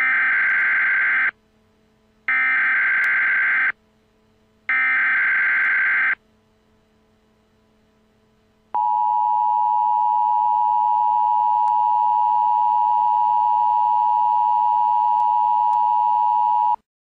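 Emergency Alert System tones. First come three SAME header data bursts, each about a second and a half long, with short gaps between them. Then, after a pause, the steady two-tone EAS attention signal sounds for about eight seconds and cuts off sharply.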